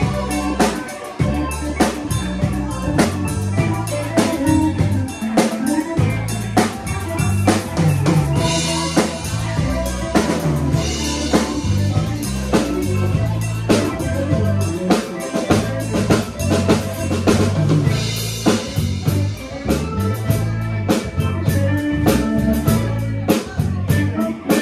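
Live band playing a funky blues groove, with the drum kit to the fore over a walking electric bass line.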